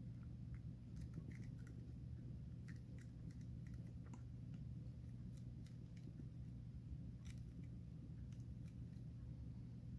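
Faint, scattered clicks and taps of small plastic model parts being handled and pressed together, over a steady low hum.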